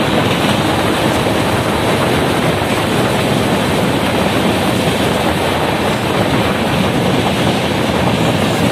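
Jan Shatabdi Express passenger train running at speed, heard from on board beside an open window: a steady rumble and rush of wheels on the rails.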